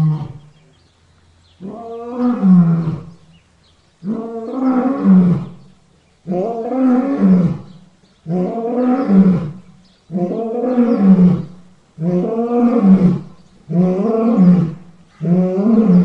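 African lion roaring: a regular series of about eight long roars, each rising then falling in pitch and lasting a second and a half to two seconds, one about every two seconds.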